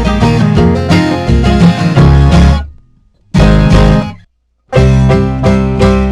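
Background music led by guitars, loud full-band chords that stop dead twice for about half a second before starting again.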